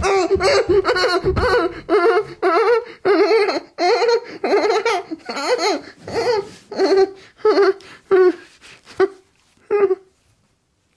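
A man laughing helplessly in a long run of short, breathy bursts, about two a second, that gradually weaken and die away near the end. He is laughing after a swig of water from a bottle went the wrong way and came back out.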